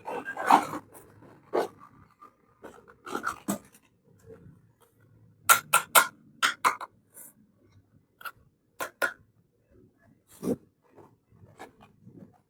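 Small plastic toy kitchen pieces being handled: irregular sharp clicks and taps, with a quick run of about five clicks near the middle.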